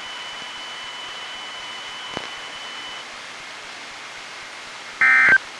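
Steady static hiss from a weather radio on a weak NOAA Weather Radio signal, with a faint high whine that stops about three seconds in. Near the end comes one short, loud electronic tone beep.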